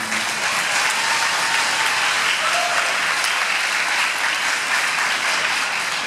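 Audience applauding: a steady wash of hand-clapping from a rink-side crowd, starting as the program music stops.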